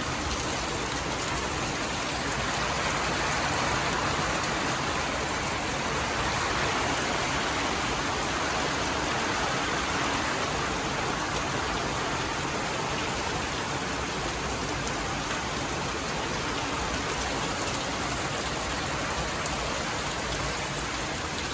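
Heavy storm rain pouring down: a steady, dense hiss that swells a little a few seconds in and holds.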